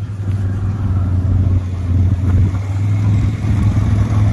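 A loud, steady, low-pitched engine drone.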